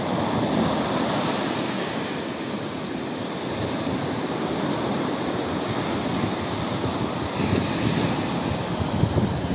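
Wind buffeting the microphone: a steady rough rush, gusting harder near the end.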